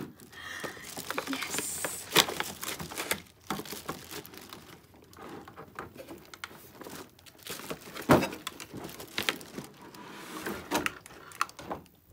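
Plastic packaging being handled: a clear plastic blister tray and the thin plastic bags around the figures crinkling and crackling, with sharp clicks and knocks of the plastic, the loudest about eight seconds in.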